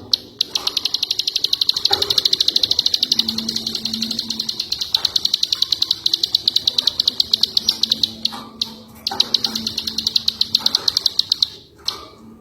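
A ciwah songbird singing a long, fast, even trill of high notes lasting about eight seconds, then after a short pause a second, shorter trill.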